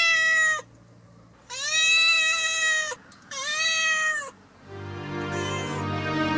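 Kitten meowing three times, long high cries that rise and then fall, the middle one the longest. Music comes in near the end.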